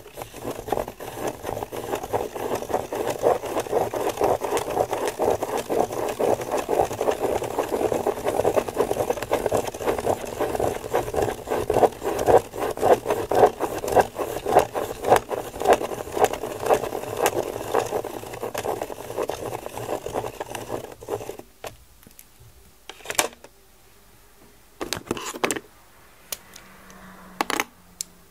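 A pen tip scraping round and round on paper as a plastic Spirograph gear is turned inside its toothed ring: a fast, rattling scratch of many quick strokes. It stops about three quarters of the way through, and a few separate light plastic clicks follow.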